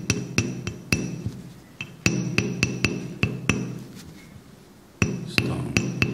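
A carving tool striking the edge of a stone seal, sharp ringing taps in three quick runs of four to six, with short pauses between runs. The taps chip small flakes from the seal's edges to give it a worn, unique look.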